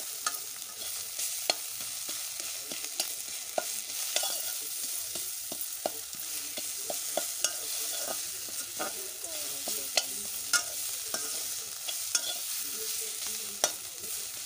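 Fish pieces sizzling steadily in hot oil in a steel kadhai while a steel spoon stirs them, scraping and clinking sharply against the pan at irregular moments.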